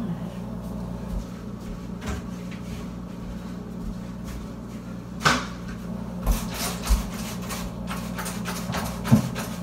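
Kitchen cleaning and handling noises: a sharp knock about five seconds in, then a quick run of clicks and rubbing at the sink. A steady low hum runs underneath.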